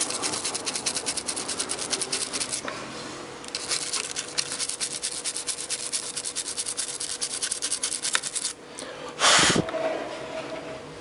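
Rapid back-and-forth scrubbing on a circuit board, washing it with acetone, in two long runs with a short pause about three seconds in. A brief loud rush of noise follows about nine seconds in.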